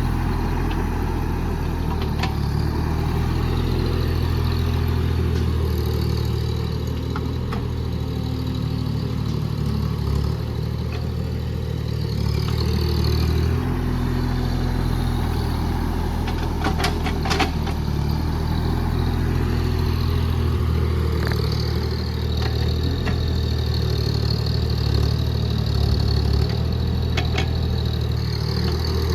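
JCB JS30 Plus mini excavator's diesel engine running steadily, its pitch shifting a little now and then as the machine works, with a few short metallic clanks.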